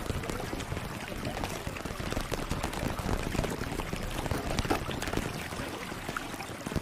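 ASMR sound track: a dense, steady run of soft irregular clicks and crackles over a hiss.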